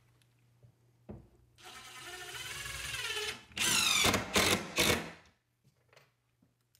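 Cordless drill/driver driving a screw into wood framing: the motor whines up in pitch for about two seconds, then three short, loud bursts as the screw is driven home.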